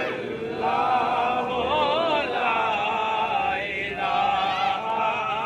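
A man chanting a devotional recitation unaccompanied, holding long wavering, ornamented notes with a short pause for breath about two thirds of the way through.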